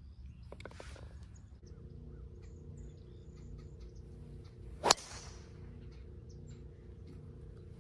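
Golf driver striking a teed ball: one sharp crack about five seconds in, fading quickly, over a steady low hum.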